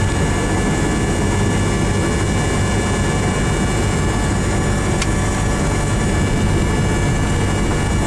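Cessna 172's piston engine and propeller running at a steady pitch, heard inside the cabin, with a faint click about five seconds in.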